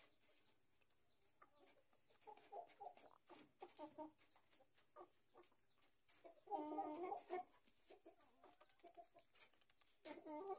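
Pama chickens clucking softly a few times, the longest and loudest cluck about six and a half seconds in.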